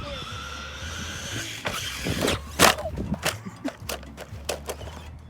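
A radio-controlled car clattering on stairs: a run of about nine sharp knocks and clacks, the loudest about two and a half seconds in, with a faint electric motor whine that fades in the first second or so.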